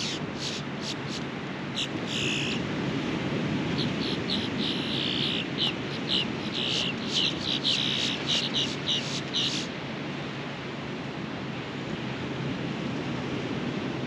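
Ocean surf washing steadily on a beach, with birds chirping over it: short, high, quickly repeated calls, busiest in the middle, that stop about ten seconds in.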